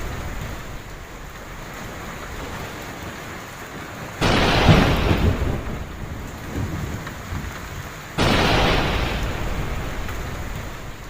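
Heavy rain falling steadily, with two sudden claps of thunder about four seconds apart. Each one starts abruptly and rumbles away over several seconds, the first with a deeper rumble.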